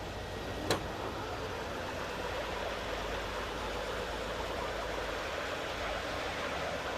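A vehicle engine running steadily under an even rushing noise, with a single sharp click just under a second in.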